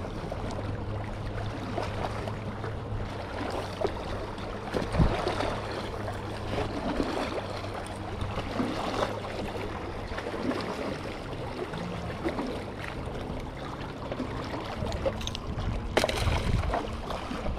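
Water sloshing and trickling against a small boat at sea over a low steady hum, with a sharp knock near the end.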